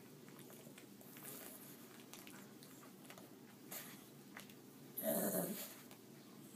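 A pug's brief vocal sound about five seconds in, lasting about half a second, over faint rustling of a towel.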